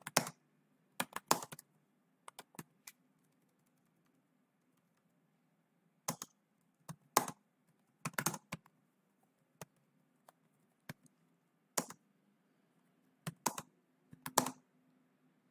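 Computer keyboard typing: sharp keystrokes in irregular bursts, with a pause of about three seconds near the start.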